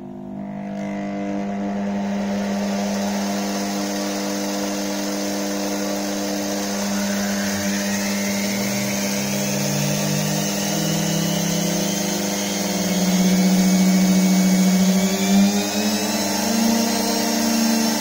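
A 960-watt universal washing-machine motor starts up under a speed controller and runs free with a steady whine. About halfway through, its pitch rises over several seconds as the speed is turned up.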